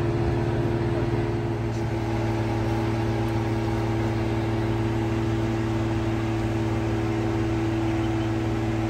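An off-road 4x4's engine running at a steady, unchanging speed: a constant low hum with no revving.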